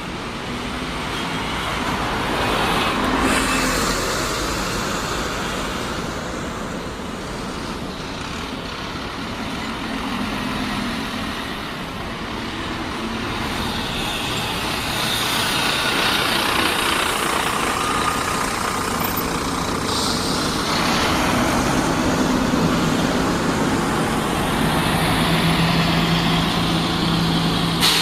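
Road traffic with vehicles passing, growing louder in swells, and a steady engine hum joining in near the end.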